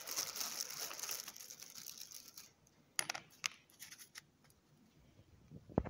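Plastic bag of oil-filter-kit seals crinkling as it is opened and rummaged through, then a few light clicks as a copper drain-plug crush washer is laid down on the bench, the sharpest near the end.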